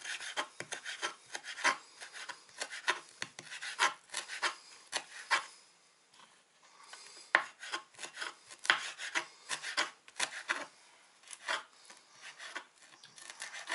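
Kitchen knife chopping fresh dill on a wooden cutting board: quick, repeated knocks of the blade against the board, several a second, with a pause of about a second and a half near the middle.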